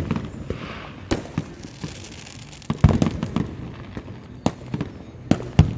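Aerial fireworks going off: a string of booms and pops about a second apart, the loudest about three seconds in.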